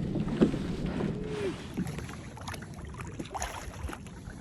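Sounds of a fishing kayak on the water: a low wash of water and wind on the microphone, with scattered small knocks and clicks of handling aboard.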